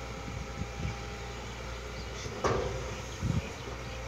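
Diesel engines of a crawler excavator and a dump truck running steadily at a worksite. A sharp metallic clank comes about two and a half seconds in, followed by a couple of heavy low thumps.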